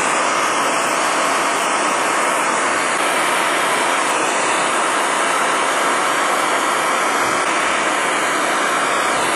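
Handheld propane torch burning with a full blue flame, a loud, steady hissing rush, as it heats a strip of spring steel to forging heat.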